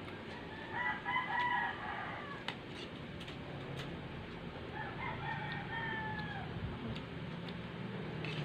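A rooster crowing twice: one crow about a second in, and a second crow about five seconds in that trails off falling in pitch. A few faint clicks are heard between them.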